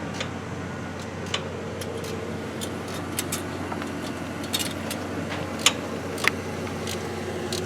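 Scattered light metallic clicks and taps of hand tools and fasteners as a part is bolted onto the engine's intake manifold, over a steady low hum.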